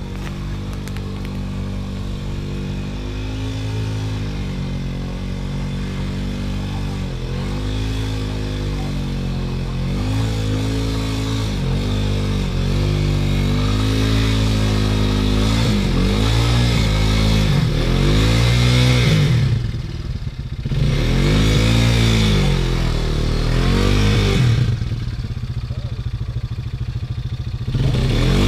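ATV engine running, its pitch rising and falling again and again as the throttle is worked. The swings get bigger toward the end, and the revs drop back twice in the last third.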